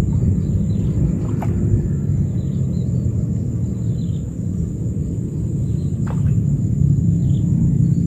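Wind buffeting the microphone in an open field: a steady low rumble. A thin, steady high whine sits above it throughout, and there are two faint ticks, about a second and a half in and near six seconds.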